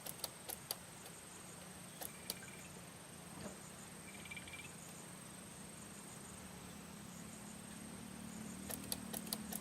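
Faint outdoor ambience: a thin, steady, high-pitched insect drone, like crickets, with a brief chirp about four seconds in. A few sharp clicks come near the start and again near the end.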